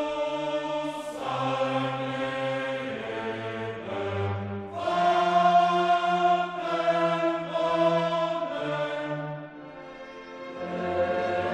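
Background classical music: a choir and orchestra holding long sustained chords that change every second or so.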